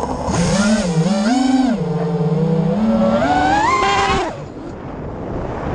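FPV quadcopter's motors whining, the pitch swinging up and down with the throttle and climbing near the end before it stops suddenly about four seconds in.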